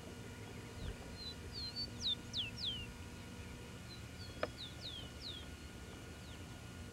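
A songbird singing two short phrases of quick, falling whistles, about two seconds apart, with a single sharp click just before the second phrase.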